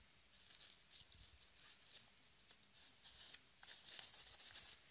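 Faint rubbing and scratching of a paper tissue wiping dust off a laptop's cooling fan and heatsink, with quicker, busier strokes in the second half.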